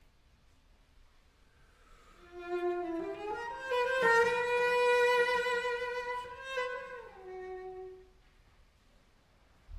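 Solo cello, bowed: after about two seconds of quiet, a short phrase of a few sustained notes steps up to a loud held note and falls back down, dying away about eight seconds in.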